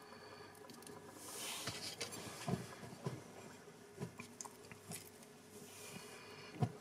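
Quiet handling of smoked salmon slices, peeled from a bowl and laid into a dish by hand, with a brief soft rustle about a second in and a few light knocks spread through the rest.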